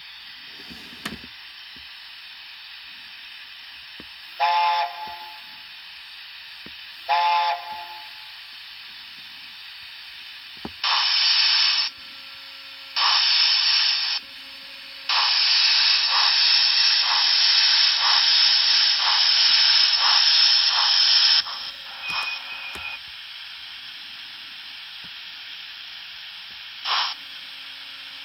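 Steam sounds from the DCC sound decoder of a Dapol Black Label A4 Mallard model locomotive, played through its small onboard speaker. Under a steady simmering hiss come two short blasts of the A4's chime whistle, then loud bursts of steam hiss. The longest burst carries a regular beat of exhaust chuffs, and two brief puffs of steam come near the end.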